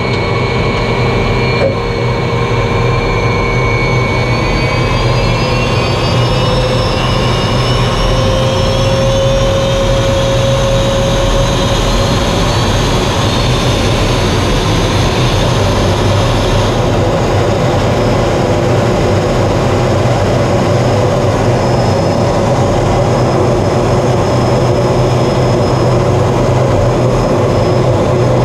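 Jet engine of a military jet trainer heard from inside the cockpit on the takeoff roll: a steady, loud rumble and rush. Over it, a turbine whine climbs in pitch for the first fifteen seconds or so as the engine spools up, then holds steady.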